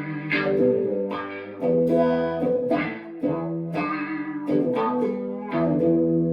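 Electric guitar played through a Dunlop Cry Baby wah pedal into a Mesa Nomad 100 amp: chords change every half second or so, their tone opening up and closing back as the pedal is rocked through its sweep.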